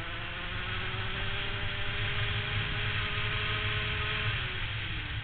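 Rotax 125cc two-stroke kart engine at speed, its note climbing slowly along the straight, then falling away about four seconds in as the throttle comes off; heavy wind rush on the onboard microphone.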